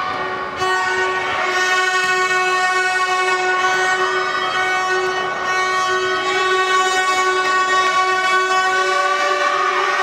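Spectators' handheld horns blown continuously, several of them at once on long, steady, overlapping notes: the headache-inducing horn noise of the crowd.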